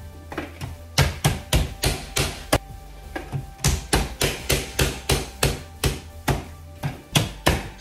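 Manual push-down vegetable chopper being slapped down by hand again and again, about three sharp plastic clacks a second, as potato is forced through its blade grid to cut fries. There is a short break near the middle.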